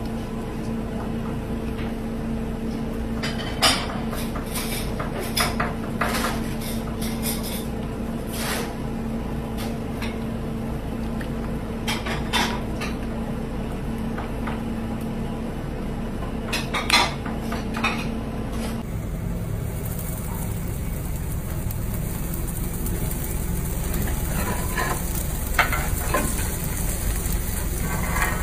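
Scattered sharp clinks and knocks of kitchenware against a ceramic platter over a steady low hum. About two-thirds of the way in, this gives way to a steady hiss of fish sizzling on a charcoal grill, with light crackles.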